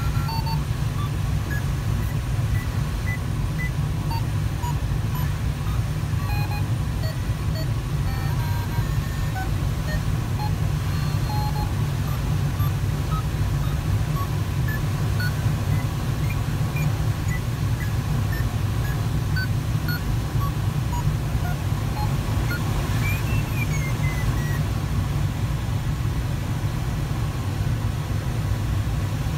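Steady low rush of airflow over the cockpit of a Sparrowhawk ultralight glider, with scattered short electronic beeps at changing pitches from the audio variometer and one short falling tone about two-thirds of the way through.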